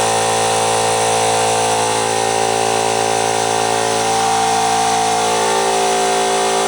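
Central Pneumatic electric air compressor running steadily, a constant motor-and-pump hum, while it builds tank pressure. The thermal cut-out has been bypassed to force it to run, and the owner takes the fault to be a bad capacitor.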